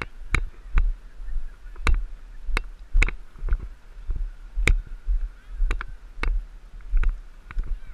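Irregular sharp clacks and knocks of lacrosse play on a body-worn camera, about one or two a second, over a low rumble of wind on the microphone.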